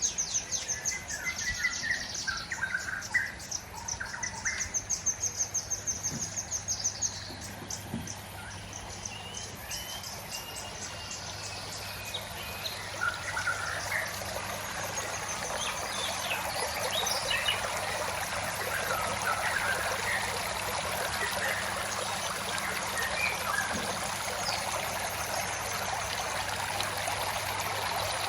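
Several birds chirping and calling, with a fast run of high repeated chirps over the first several seconds, then scattered calls. Beneath them is a steady sound of running water that grows louder through the second half.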